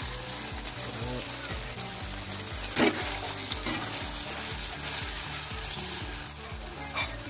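Sardines and vegetables sizzling steadily in a nonstick frying pan while a metal ladle stirs them, with one sharp clack of the ladle about three seconds in.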